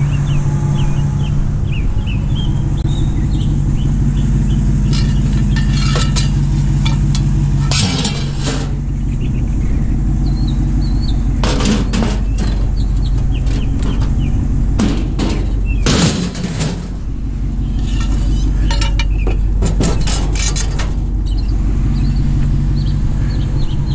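Pickup truck running steadily on the road. Several bursts of loose metal rattling and clinking sound over the engine.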